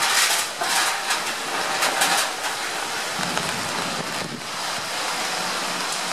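Typhoon wind and rain, a steady rushing noise, with strong gusts buffeting the microphone in the first couple of seconds.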